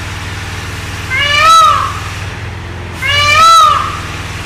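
Brahminy kite calling twice, each a mewing cry about half a second long that rises and then falls. A steady low hum runs underneath.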